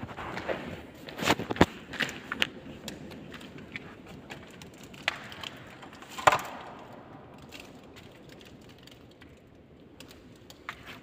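Dry stalks and sticks crackling and snapping: irregular sharp cracks over a rustle, the loudest a little over a second in and again about six seconds in, then fainter crackling.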